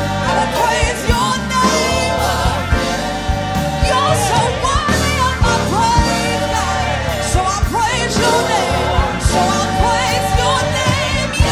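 A gospel worship team singing live with a band: several voices over drums and bass.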